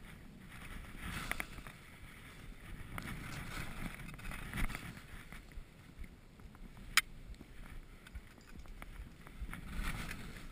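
Skis sliding and hissing through soft, tracked snow, with wind buffeting the camera's microphone. A sharp click about seven seconds in.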